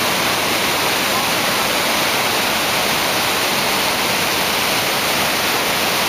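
Kivach waterfall on the Suna River: white water pouring over rock ledges makes a steady, even rushing hiss with no breaks.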